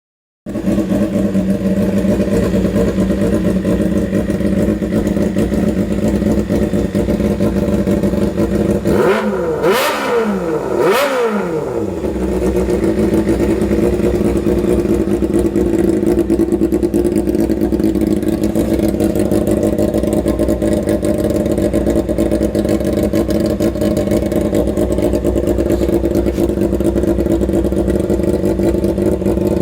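Engine idling loudly through a Misty aftermarket muffler with its silencer baffle removed, an open, unsilenced exhaust note. About nine seconds in the throttle is blipped twice, the pitch rising and falling with each rev, then it settles back to a steady idle.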